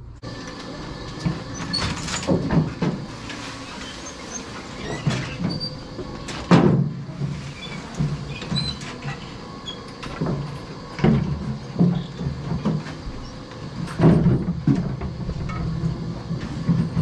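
A steady low mechanical hum with sharp metal clanks and scrapes every few seconds, the loudest about six and a half and fourteen seconds in: barn equipment running while tools and metal fittings are handled among the tied cows.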